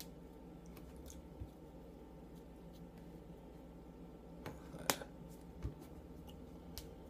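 Faint taps and rustles of hands brushing against a shirt and tapping a desk while signing, over a steady low room hum. The sharpest click comes about five seconds in.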